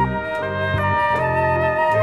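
Instrumental music from a small ensemble of flute, oboe, violin, piano, double bass and drums. Held wind-instrument melody notes play over bass notes that change about every half second.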